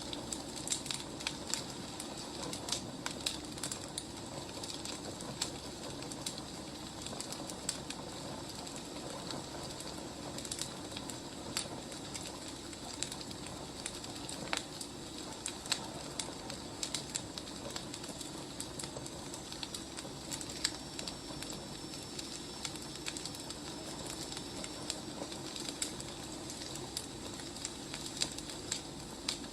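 Wood fire burning, with frequent irregular crackles and pops over a steady low rumble and hiss.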